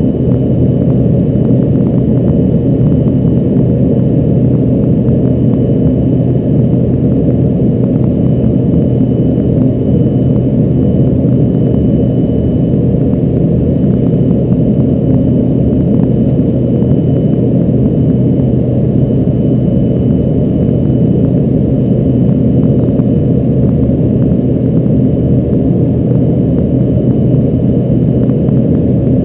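Cabin noise of an Embraer ERJ-145 jet: a loud, steady low roar from its rear-mounted Rolls-Royce AE 3007 turbofans and the airflow, with a low steady hum and a faint thin whine above it.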